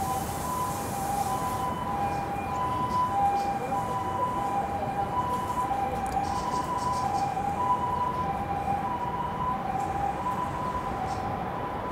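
An emergency vehicle's two-tone hi-lo siren. It keeps switching between a higher and a lower pitch, each held for a little over half a second. This is the 'pee-poh' pattern of a Japanese ambulance.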